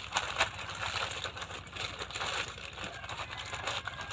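Plastic courier mailer bag being torn open and rummaged by hand: irregular crinkling and rustling of thin plastic.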